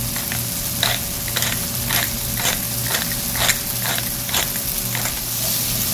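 Crinkle-cut potatoes, carrots and peas sizzling in olive oil in a stone-coated frying pan. A wooden spatula stirs them, scraping through the pan about twice a second.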